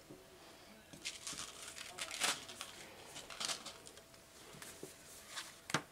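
Packaging being rummaged through, rustling and crinkling in a series of short bursts from about a second in, with a sharper one just before the end.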